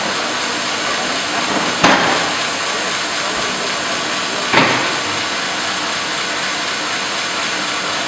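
Steady mechanical running noise of a Mebor 1200 Super Split horizontal band sawmill line, with two sharp knocks about two seconds and four and a half seconds in.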